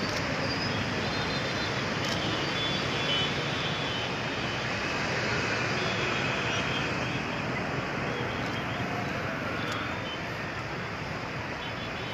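Steady road traffic noise, with vehicles running by.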